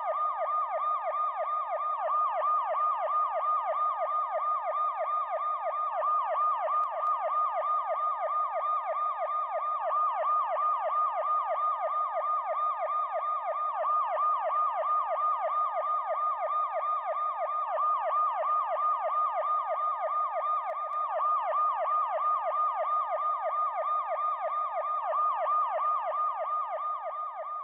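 Electronic police siren in a fast yelp, its pitch sweeping up and down several times a second without a break. It fades out near the end.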